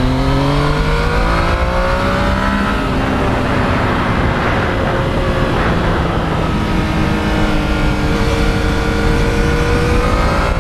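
Yamaha MT-09's inline three-cylinder engine running under way. Its note climbs for the first couple of seconds, drops about three seconds in, then climbs slowly again, under a steady rushing noise.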